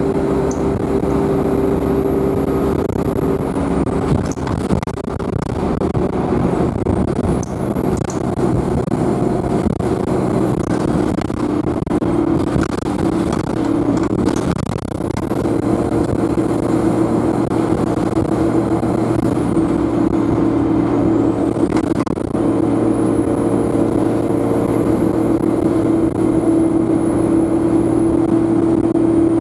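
Alexander Dennis Enviro200 bus's Euro 5 diesel engine running under way, with a steady drone underneath. Over it a very high turbocharger whine climbs, holds and then drops away, about four times.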